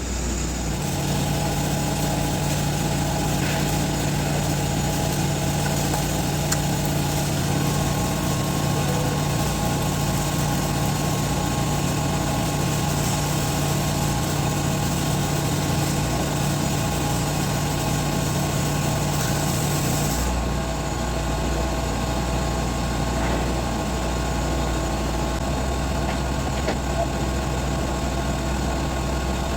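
TIG welding arc on stainless steel pipe while walking the cup: a steady hiss over a constant low machine hum. About twenty seconds in the arc stops, the hiss falls away and the low hum goes on.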